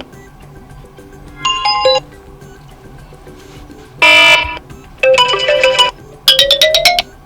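Brief previews of different iPhone 15 Pro Max ringtones played one after another: four short tone snippets, each half a second to a second long with a pause between, the last a quick run of repeated notes.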